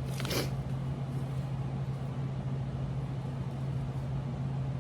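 A steady low hum, with a brief rustle a fraction of a second in.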